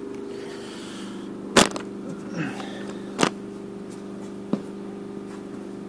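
Steady low machine hum made of several fixed tones, broken by three sharp clicks or knocks. The loudest comes about one and a half seconds in, the others about three and four and a half seconds in.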